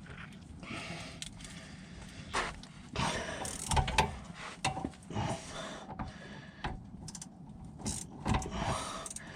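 Irregular clicks, knocks and scrapes of hand work on metal parts under a car, with no steady running sound.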